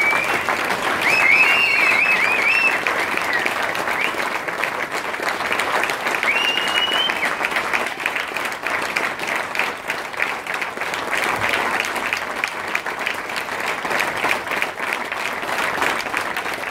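Audience applauding: a room full of people clapping steadily, with a few high, wavering whistles in the first three seconds and again about six seconds in.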